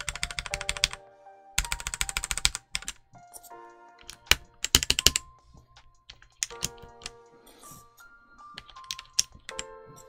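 Redragon K673 Pro mechanical keyboard with Redragon Red linear switches clattering in two quick bursts of keypresses in the first couple of seconds, with a louder cluster of clicks about five seconds in and scattered single clicks as keys and switches are handled. Background music plays underneath.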